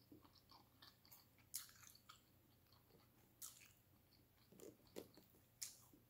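Faint close-up chewing of a mouthful of pasta: soft, scattered mouth clicks and smacks.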